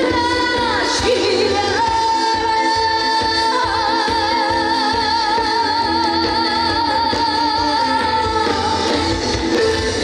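Live trot song with band backing: a woman's voice slides down and then holds one long high note with a wide vibrato for several seconds before the accompaniment carries on.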